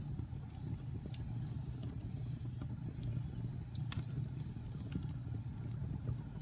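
Wood fire in a fireplace crackling, with scattered sharp pops over a steady low rumble of the flames; the loudest pop comes about four seconds in.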